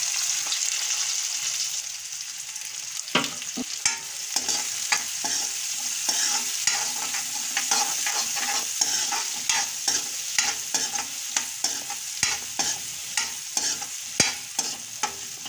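Chopped onions and green chillies sizzling steadily in hot mustard oil in a kadhai. From about three seconds in, a metal spatula scrapes and knocks against the pan in quick repeated strokes as they are stirred.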